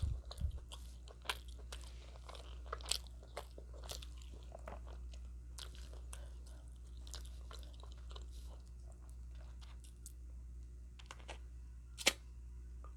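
A person chewing food close to the microphone, with irregular soft crunches and mouth clicks.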